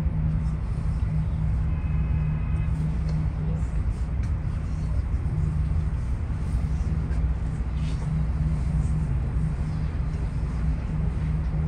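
Steady low rumble with a constant hum, typical of a running vehicle or machine heard from close by.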